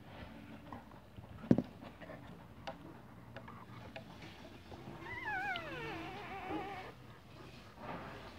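Three-day-old puppy whining: one wavering cry that slides down in pitch, about five seconds in, lasting nearly two seconds. A sharp knock about a second and a half in is the loudest sound.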